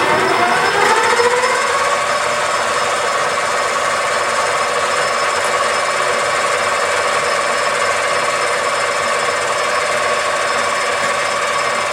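Sieg mini lathe running: the motor's whine rises in pitch as the spindle spins up over the first couple of seconds, then holds at a steady speed and starts to wind down at the very end.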